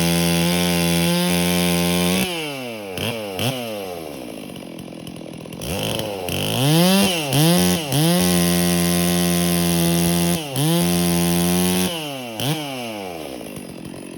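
Stihl 460 Magnum two-stroke chainsaw being revved. It holds at full throttle for about two seconds, drops to idle with two quick blips, then revs up again about six seconds in and holds high for several seconds with a brief dip. It falls back to idle near the end after one more blip.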